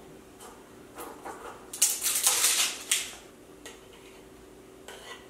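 A metal spoon scooping thick Caesar dressing from a jar into a small metal measuring cup: a few light clinks, then a dense run of scraping and clinking about two seconds in, then a couple of single taps.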